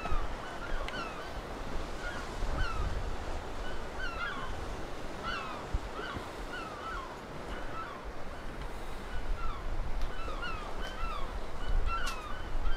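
Birds calling over and over, many short curved calls overlapping, as from a flock, over a low rumble.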